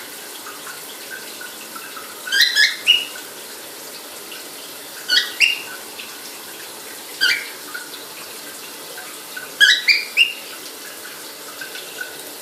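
Cockatiel giving short rising chirps in four bursts a few seconds apart, over the steady hiss of running water from its shower.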